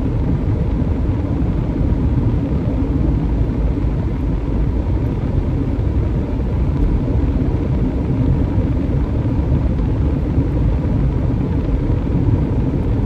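Steady road and engine rumble inside a moving car's cabin.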